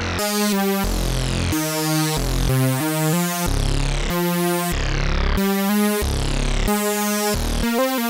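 Sequential OB-6 analog polysynth played dry with no reverb: a run of short, bright chords over changing bass notes, each one stopping abruptly with no tail.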